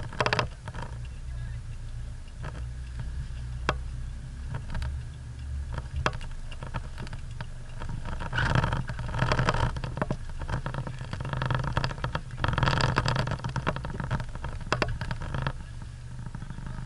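Off-road 4x4 engine idling with a steady low hum, heard from inside the cab. The engine noise swells louder about eight seconds in and again around twelve seconds, with a few sharp ticks in between.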